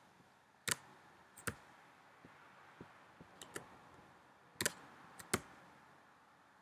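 Computer keyboard keys being tapped, about seven irregular clicks, one or two at a time, over a faint hiss.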